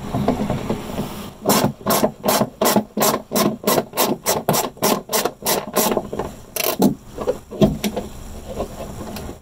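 Hand ratchet on a 10 mm socket backing out a screw: the pawl rasps on each quick back-swing, about four strokes a second for several seconds, then two more after a short pause.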